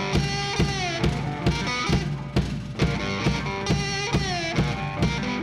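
Blues band playing an instrumental passage: slide guitar gliding down between notes over a steady drum beat.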